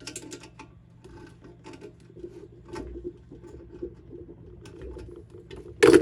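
Small pliers clicking and scraping on the exhaust pipe's mounting nuts as they are tightened by hand, with one loud sharp knock near the end.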